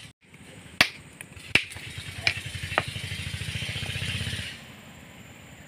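Hammer striking a steel chisel to split gold-bearing ore rock on a stone anvil: four sharp metallic blows within about three seconds. Behind them a small engine runs with a rapid pulsing beat and stops suddenly about four and a half seconds in.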